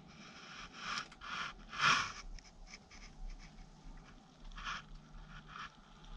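A few short scrapes and scuffs against wood and debris, the loudest about two seconds in, as a camera is pushed into a cramped gap under a beam.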